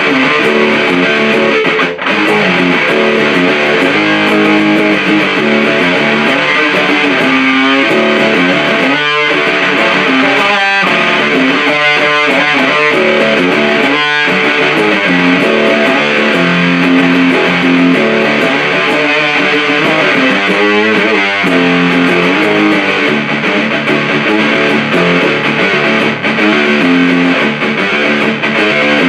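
Electric guitar played through a Supercoolpedals 77 Fuzz Blender, a Big Muff-style op-amp fuzz, into an Orange Super Crush 100 amp: loud, thick fuzz-distorted riffing with sustained chords that change every second or so.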